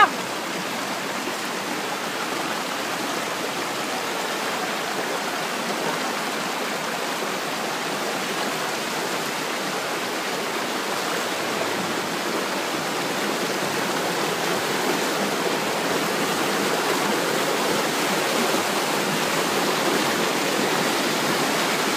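Shallow stream rushing over rocks and a small cascade, a steady wash of running water that grows gradually louder over the second half.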